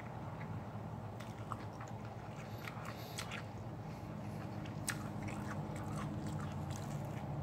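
A man chewing a mouthful of food close to the microphone, with small crunching clicks scattered through, over a steady low hum.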